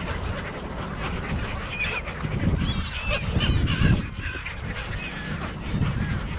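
A flock of gulls calling, with many short overlapping squawks that grow busiest and loudest about two and a half to four seconds in.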